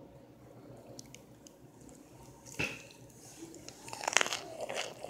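A person biting and chewing chunks of cornstarch close to the microphone: quiet at first, one crisp crunch about halfway through, then a quick run of crunches near the end.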